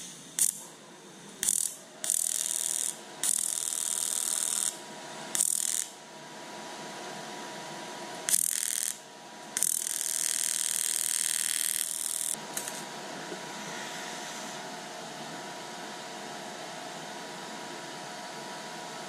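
AC TIG arc from a Lincoln Electric Aspect 230 running at 40 Hz on the end of an aluminum pop can, struck and stopped in about seven crackling bursts of varying length, the longest nearly three seconds about ten seconds in. After the last burst a steady fan hum continues.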